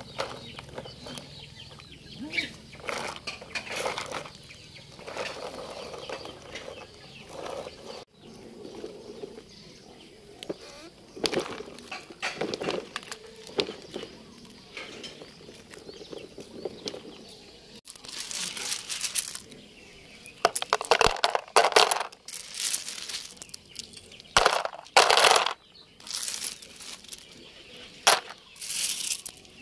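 Small rocks and gravel clattering as they are scooped and dropped into a hard plastic toy dump-truck bed, in short bursts with gaps between, the loudest near the end.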